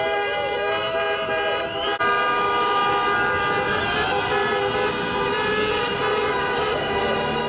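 Many car horns sounding at once in long, overlapping blasts from a convoy of cars: celebratory honking. The din breaks off briefly about two seconds in, then carries on.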